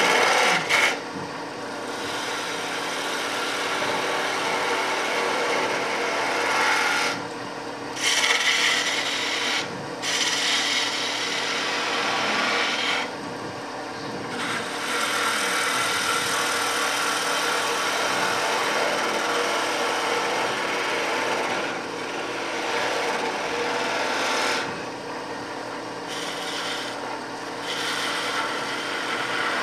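Wood lathe running while a hand-held turning tool cuts the spinning wooden blank: a continuous rasping, shearing noise over a faint steady motor hum, breaking off briefly a few times as the tool comes off the wood.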